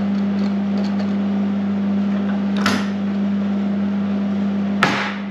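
A steady, loud machine hum fills the shop. Over it, metal clamps are handled on a steel table: a clack about halfway through and a sharper metallic clank near the end.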